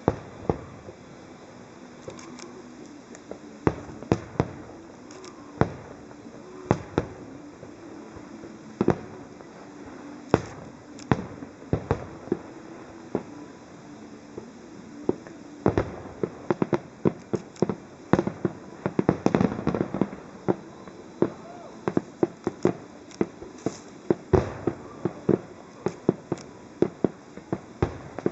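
Aerial fireworks shells bursting with sharp bangs at irregular intervals. The bangs come more thickly in the second half, with a dense run of bursts about two-thirds of the way through.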